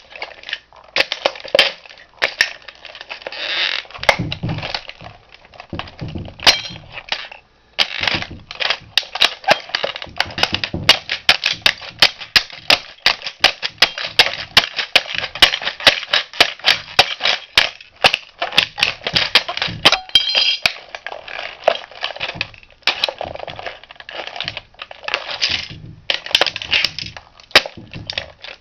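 Toy Mustang model car being crushed under a shoe: a dense run of cracking and snapping plastic, with small broken pieces clicking and clattering, pausing briefly about seven seconds in.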